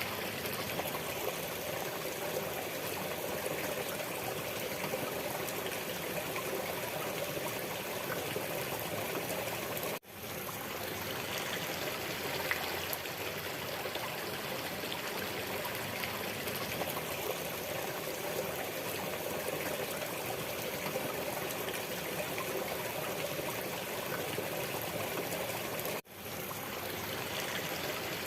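Waterfall: a steady rush of falling water. It cuts out abruptly twice, about ten seconds in and near the end, and swells back within a second each time.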